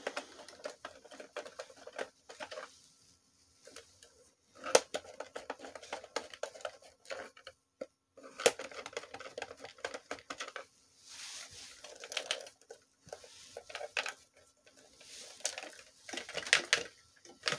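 A plastic clock-radio case being worked at and pried with a screwdriver: irregular clicks, taps and scrapes of plastic and metal.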